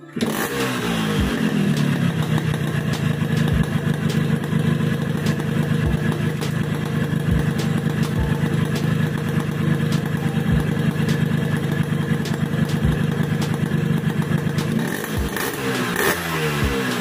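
Yamaha RX-King's two-stroke single-cylinder engine kick-started, catching at once with a short rise in revs, then idling steadily, and revved up and down a few times near the end. The engine has just had its top end serviced and leaking gaskets renewed.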